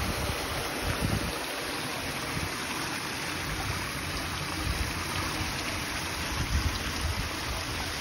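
Water of a small outdoor fountain falling over stone ledges and a concrete spout in little cascades: a steady splashing rush.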